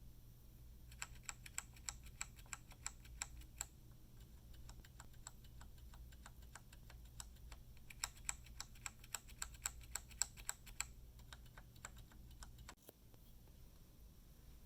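Typing on a mechanical keyboard with Outemu brown switches: rapid runs of key clacks, a dense burst starting about a second in and another around eight seconds in, with slower keystrokes between.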